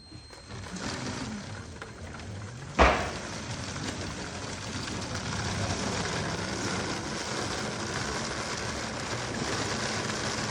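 A LEGO train crashing: one sharp, loud clattering impact about three seconds in, followed by a steady rattling noise.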